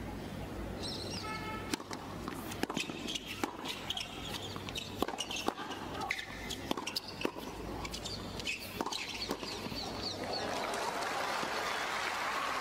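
Doubles tennis rally played back from a TV broadcast: a quick series of sharp pops as the ball is struck back and forth, about a dozen in all, then crowd applause and cheering swelling near the end as the point is won.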